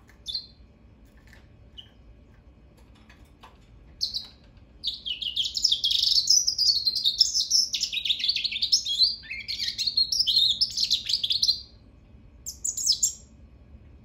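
Goldfinch × African canary hybrid singing. A short chirp near the start, then from about four seconds in a fast, high-pitched song of rapid notes lasting about eight seconds, and a brief closing phrase near the end.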